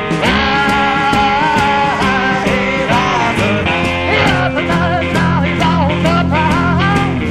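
Background rock music: a song with guitar and singing over a steady drum beat.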